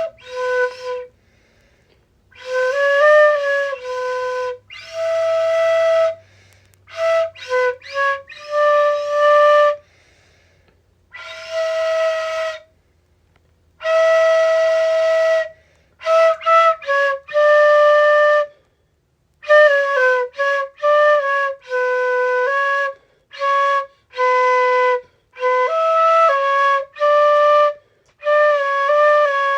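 Solo flute playing a slow melody in short phrases of separate held notes, with brief pauses between phrases and a breathy tone.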